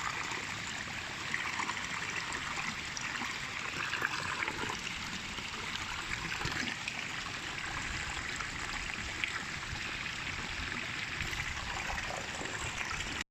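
River water flowing, a steady, even rush with no change in level. The sound cuts out abruptly at the very end.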